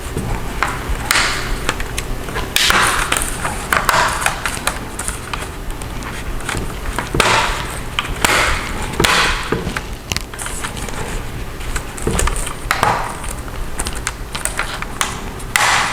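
Laptop cover panel being fitted and pressed into place on a Dell Latitude E5450: irregular scraping and sharp clicks as its clips snap in.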